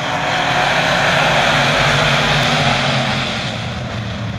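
A pack of dirt-track modified race cars racing past, their V8 engines swelling to a peak a second or two in and easing off as the field goes by.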